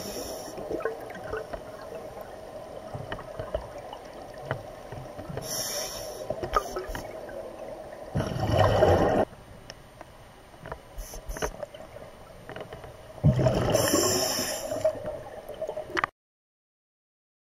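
Underwater scuba breathing through a regulator: a hiss of inhaled air, then loud gurgling surges of exhaled bubbles every few seconds. The sound cuts to silence near the end.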